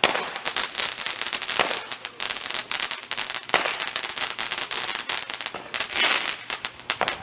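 Consumer fireworks going off: a dense, rapid crackling throughout, broken by several louder pops.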